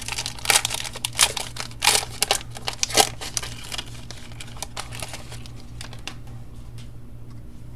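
Foil wrapper of a 2015 Panini Spectra football card pack being torn open and crinkled. There is a quick run of sharp crackles over the first three seconds or so, then a few quieter rustles as the cards come out. A faint steady low hum sits underneath.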